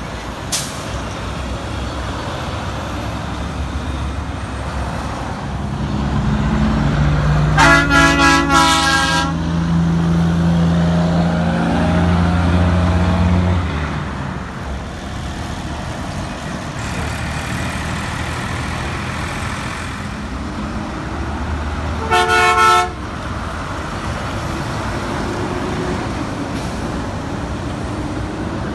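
Semi-trucks' diesel engines passing through an intersection, loudest about 6 to 13 seconds in. A horn blows for about a second and a half near 8 seconds, and a shorter horn blast comes about 22 seconds in.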